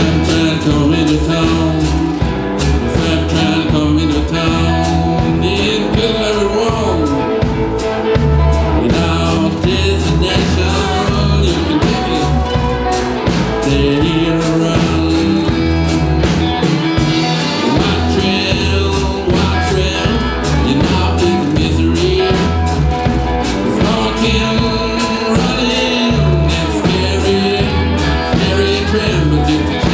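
Live blues-rock band playing: electric cigar box guitars over a drum kit keeping a steady beat.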